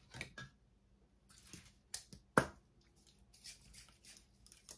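Small handling noises: scattered short clicks and rustles, the loudest a sharp click about two and a half seconds in.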